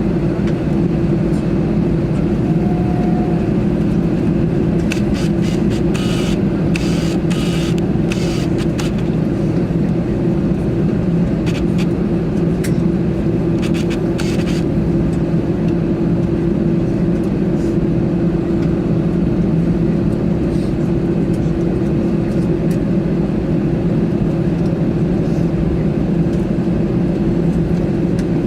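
Airbus A321 cabin noise: a steady engine and airflow rumble with a constant low hum. A scatter of short clicks and rattles comes in about five seconds in and stops around fifteen seconds.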